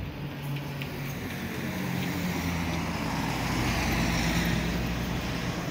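A motor vehicle driving past, its engine hum and road noise swelling to the loudest point about four seconds in and then easing off.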